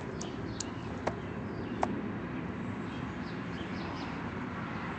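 Steady outdoor background hum with a few light clicks in the first two seconds and faint bird chirps later on.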